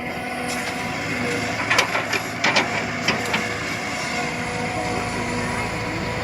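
Backhoe engine running steadily with a constant whine, and a run of sharp clanks about two to three and a half seconds in.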